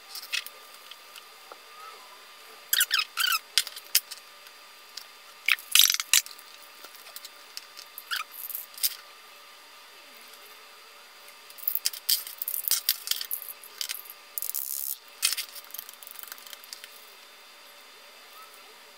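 A metal herb grinder being handled and twisted: scattered short squeaks and scrapes, then a quick run of them past the middle.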